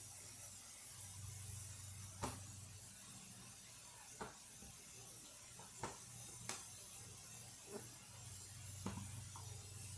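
Hamburger patties frying in a pan, giving a faint steady sizzle over a low hum, with about six light clicks and knocks of kitchen items being handled.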